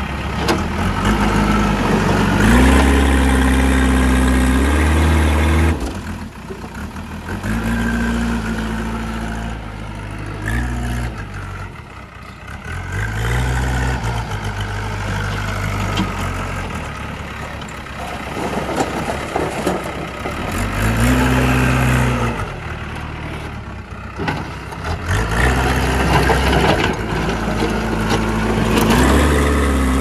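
JCB 3DX backhoe loader's diesel engine running under load, revving up and dropping back again and again as the loader bucket is driven, lifted and dumped.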